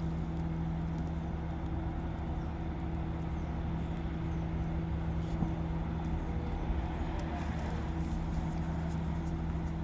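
Crane engine running steadily under load, a low even drone with no change in pitch.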